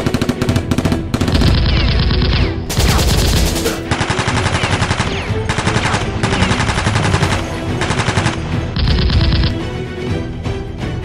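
Rapid automatic gunfire sound effects in several bursts over action music. The gunfire stops near the end, leaving the music.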